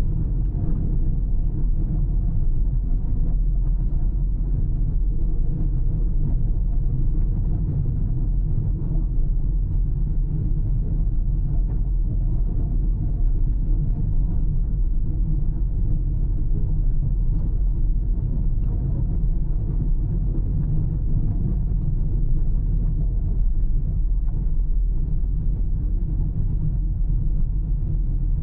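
Car driving along a road at a steady pace: an even, low rumble of tyres and engine with no sudden changes.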